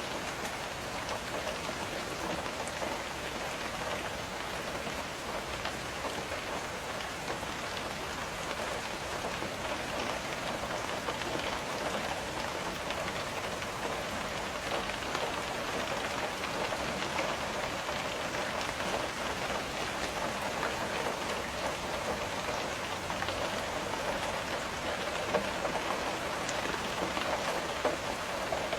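Steady rain, with many small drops tapping on window glass.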